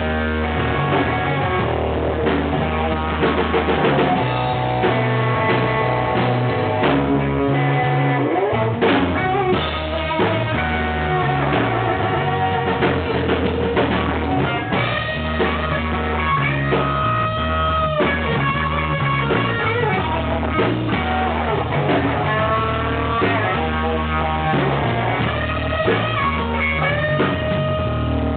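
A blues band playing live: a guitar lead with bent notes over bass guitar and drum kit, without vocals.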